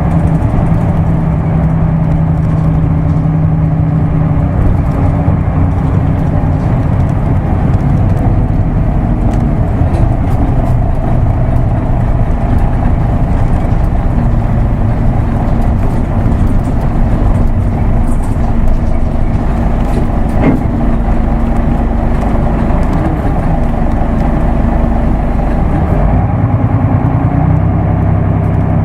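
Isuzu Erga Mio bus's diesel engine running steadily with road noise as the bus drives, its engine note shifting in pitch a few times, about four seconds in and again near the end.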